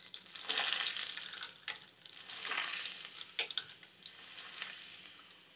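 Peeled, lightly crushed garlic cloves sizzling in hot oil, held in a small steel strainer dipped into a tempering pan, with scattered crackles. The sizzle is strongest in the first half and fades toward the end.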